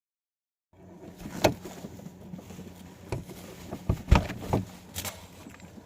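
About six sharp knocks and clicks at irregular intervals over a low steady hum, starting after a brief silence.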